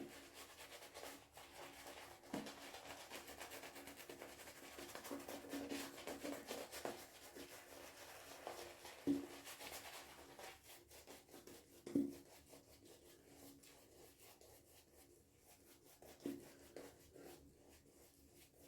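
Silvertip badger shaving brush working a very wet, water-loaded shaving soap lather on the face: faint, steady rubbing strokes with a few brief louder moments.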